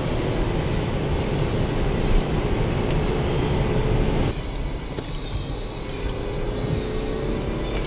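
Police pursuit car at high speed, about 160 km/h, heard from inside the cabin: steady engine, tyre and wind noise. The noise drops suddenly about four seconds in, then a faint engine note rises gently.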